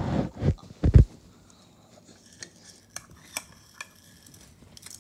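A couple of loud thumps in the first second, then a run of light, scattered clinks of a spoon against a dish.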